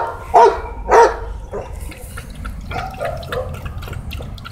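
Pit bull puppy barking three short times in quick succession in the first second, then quieter sounds of a puppy lapping and splashing water in a cooler.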